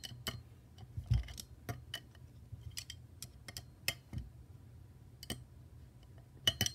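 Irregular light metallic clicks of an 8 mm open-end wrench being set on and turned on an M5 nut, tightening a motor-mount bolt while a hex key holds the screw head, over a faint steady low hum.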